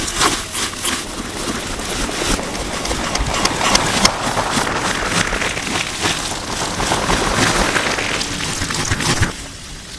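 Slime being squished and worked by hand, a dense run of wet clicks and crackles, heavily distorted by processing. About nine seconds in it cuts to a quieter, softer squishing.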